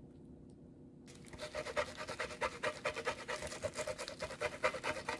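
Cheese being grated on a metal box grater: quick rasping strokes, several a second, starting about a second in.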